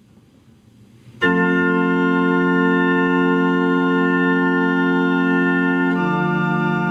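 Church pipe organ, its pipes driven over MIDI, sounding a loud sustained chord that begins abruptly about a second in. Near the end it moves to a lower chord.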